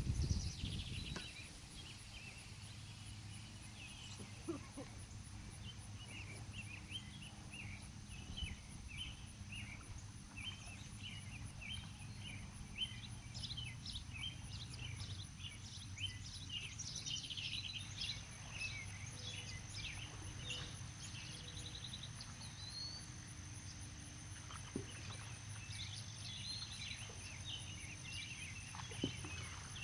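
Outdoor ambience of small birds chirping and singing in short repeated phrases, over a low steady hum and a thin steady high tone. A brief low rumble comes in the first second.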